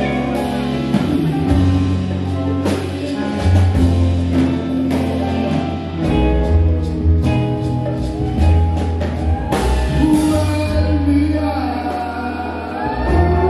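Latin soul band playing live, with a strong bass line and percussion under a male lead vocal that becomes more prominent about ten seconds in.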